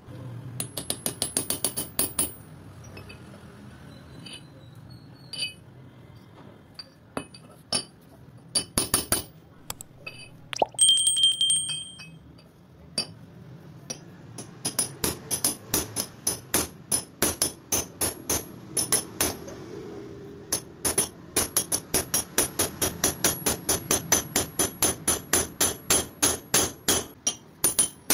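Hammer blows on a steel drift driving the crankpin into a motorcycle crankshaft flywheel: sharp metallic strikes, a quick flurry at first, then scattered blows, one of which leaves the metal ringing briefly, then a long even run of about four blows a second.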